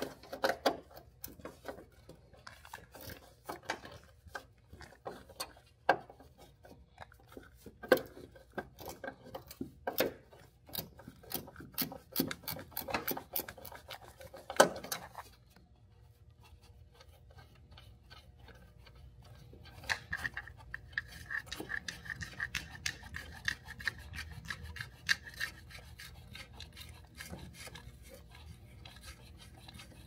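Hand work on a Jeep's dash parts: sharp clicks, knocks and rubbing for about fifteen seconds, then, after a short lull, a quicker, fainter run of ticking over a faint steady high whine from about twenty seconds in.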